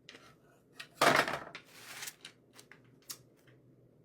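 Craft supplies being handled on a work table: a loud rustling clatter about a second in, then several light clicks and taps.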